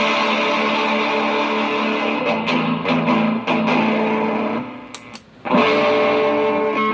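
Electric guitar played through a pedalboard with distortion: held, ringing chords with a few quick strums in the middle, then the sound dies away briefly before a new chord is struck and sustained.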